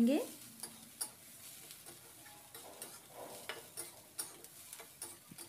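A spatula stirring and tossing shredded potatoes and onions in a metal wok, with scattered clicks and scrapes against the pan over a faint sizzle of frying.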